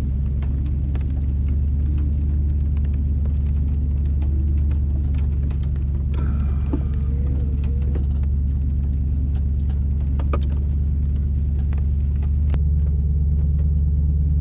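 Off-road four-wheel-drive vehicle's engine running with a steady low drone as it crawls slowly along a trail, with scattered clicks and knocks and a brief rustling noise about six seconds in. The drone gets a little louder near the end.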